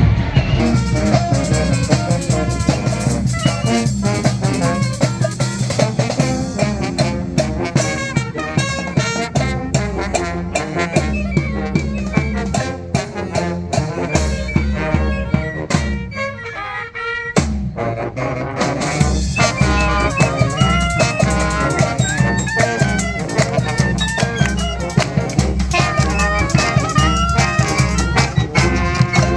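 Street band of brass horns and drums playing a lively tune; about halfway through the drums and low end drop out for a second or two before the full band comes back in.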